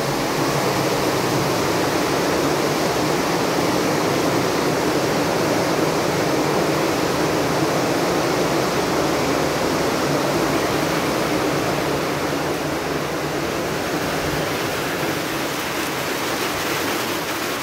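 Heavy rain falling, a steady, dense hiss.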